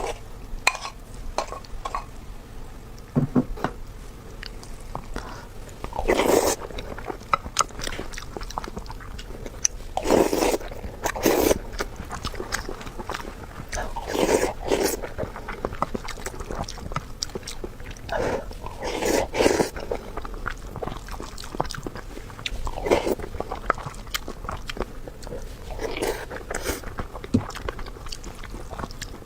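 Close-up eating sounds: a person chewing and biting food, with small wet clicks throughout and louder bursts every few seconds.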